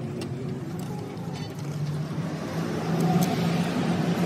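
An engine running steadily with a low hum, growing louder from about two and a half seconds in.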